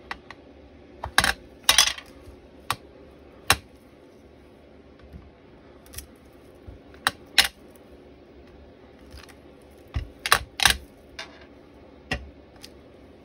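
Scattered light clicks and taps of hard plastic: a clear acrylic stamp block knocking on a Versamark ink pad and on card over a cutting mat, with the plastic ink pad case handled, as a stamp is inked and pressed down. About a dozen separate clicks, several in quick succession near the end.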